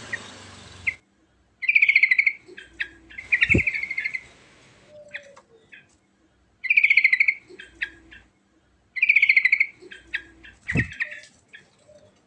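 Yellow-vented bulbul (trucukan) singing: about five short, rapid chattering phrases separated by pauses of a second or more. A steady hiss stops about a second in.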